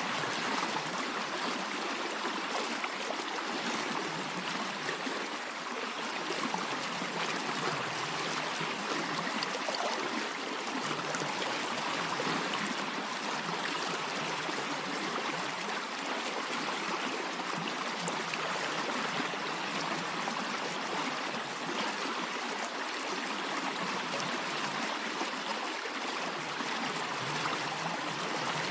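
A stream of water flowing steadily.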